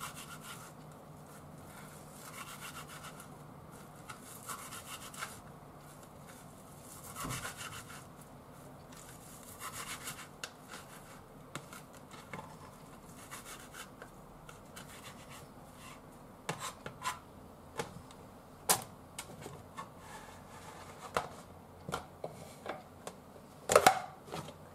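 Kitchen knife cutting soft wakame seaweed on a wooden cutting board. At first it makes quiet slicing and rubbing strokes, then from past the middle comes a scatter of sharp knocks as the blade meets the board. Near the end there is a louder scrape and knock as the cut pieces are slid into a plastic tub.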